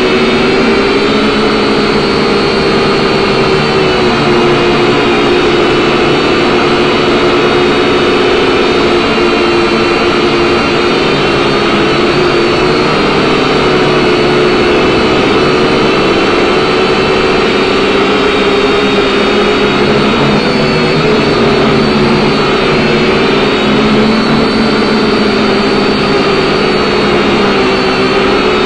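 A small drone's electric motors and propellers whine loudly and steadily, with the pitch wavering slightly as the motors adjust speed to hold the drone in the air.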